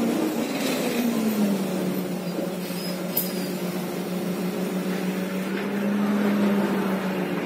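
Irisbus Agora L CNG articulated bus with its Renault MGDR 06.20.45 engine, heard from inside the passenger cabin while driving: a running hum over road noise that drops in pitch over the first second and a half, then holds steady with a slight swell near the end.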